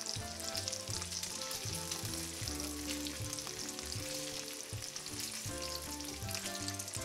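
Bacon sizzling and crackling steadily in a cast-iron skillet as it fries toward crisp. Soft background music with a bass line plays underneath.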